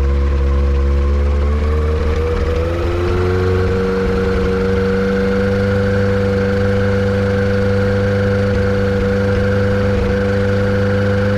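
Yamaha Apex engine on a Kitfox airplane running steadily, its speed shifting slightly about two to three seconds in and then holding. The owner suspects a vacuum leak behind its misfire.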